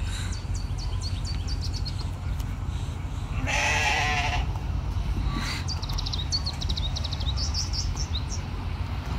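A single bleat from a sheep or goat, about a second long and wavering in pitch, about three and a half seconds in. Short high chirps and a steady low rumble go on around it.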